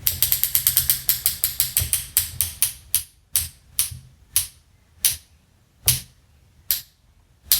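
A run of sharp mechanical clicks, quick at first, about six a second, then spacing out steadily until they come less than a second apart near the end.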